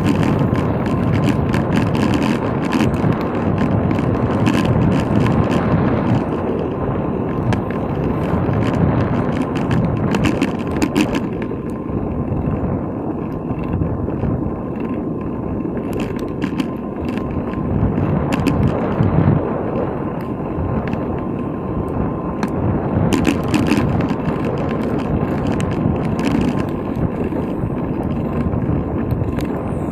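Wind rumbling on a bicycle-mounted dashcam's microphone along with tyre noise while riding, with bursts of small rattles and clicks from the bike and the mount.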